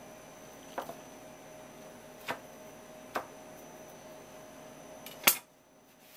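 Four light knocks and taps of hands and fish on a wooden cutting board, the loudest about five seconds in, over a faint steady hum that cuts off just after it.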